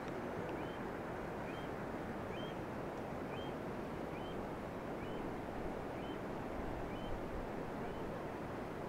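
Steady rush of a nearby mountain river. Over it a bird repeats a short, high, up-slurred note about once a second.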